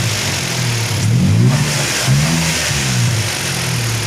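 2016 Kia Picanto's petrol engine running and being revved repeatedly, its pitch rising and dropping back about three times. It now starts at one crank, the hard-starting fault cured.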